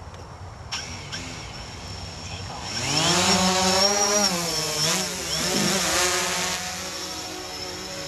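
DJI Phantom 3 Standard quadcopter's electric motors and propellers spinning up and lifting the drone off: a buzzing whine that swells and rises in pitch about two and a half seconds in, wavers up and down with the throttle, then settles into a steadier, lower hovering drone.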